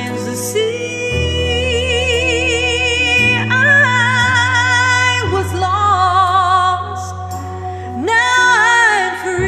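A woman singing long held notes with wide vibrato, sliding between pitches without clear words, over a backing track of sustained chords.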